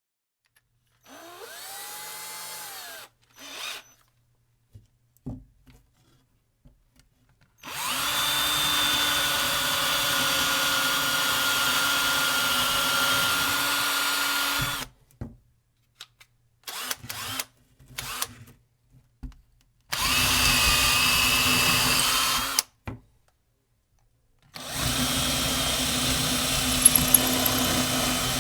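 Cordless drill drilling into wood in several runs. First a short spin-up and wind-down, then long steady runs of several seconds each, separated by pauses and a few short trigger blips.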